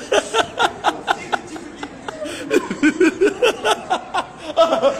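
Laughter in quick repeated bursts, several a second.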